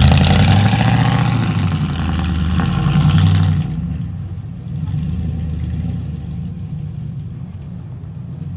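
Chevy Silverado pickup's engine revving hard as the truck pulls away, loud for about three and a half seconds, then settling to a steadier, quieter run as it drives off.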